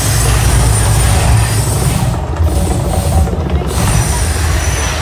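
The Mirage's artificial volcano erupting: a loud, deep rumble with the rushing hiss of its gas flame jets. The hiss drops away briefly twice around the middle.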